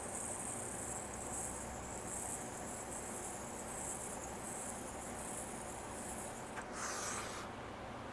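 Puffco Peak electronic dab rig being inhaled from: a steady high sizzling hiss of air drawn through the hot bowl. The hiss stops about six and a half seconds in, and a breathy exhale of about a second follows.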